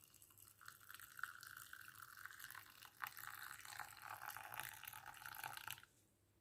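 Hot herbal milk, a thyme infusion, being poured through a strainer into a glass: a faint, steady stream of liquid that stops abruptly near the end.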